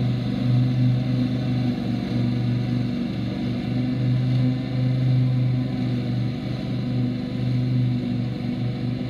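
Husqvarna ride-on lawn tractor's engine running steadily under load as it mows, with its deck blades cutting grass and blowing clippings out of the side chute.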